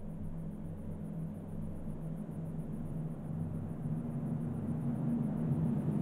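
Low ambient drone made of several steady low tones, slowly swelling louder.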